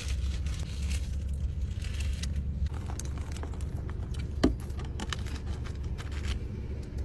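Steady low hum of a car idling, heard from inside the cabin, with a scatter of small clicks and rustles through the middle; the sharpest click comes about four and a half seconds in.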